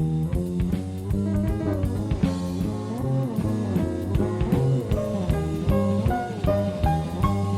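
Live jazz-fusion band playing a funky groove, with guitar, bass and drum kit, heard off an old cassette tape recording.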